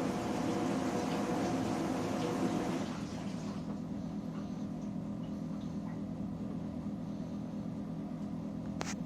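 Panasonic NP-TH1 dishwasher running: a steady rush of water over a motor hum that drops to a quieter steady hum about three seconds in, with a short click near the end.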